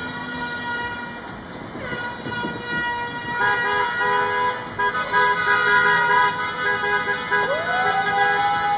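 Several vehicle horns from a convoy of trucks honking together in long held blasts, growing louder a few seconds in. Near the end one horn tone swoops up and then sags slowly in pitch.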